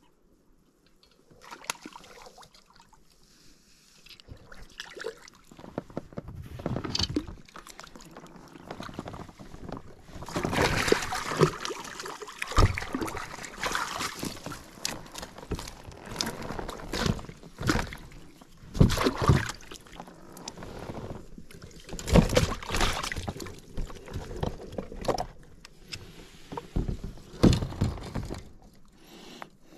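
Water splashing and sloshing as a bull trout is played and lifted in a landing net beside an inflatable pontoon boat. Irregular knocks and rubbing come from the net, rod and gear against the boat, loudest about ten seconds in and again a little past twenty seconds.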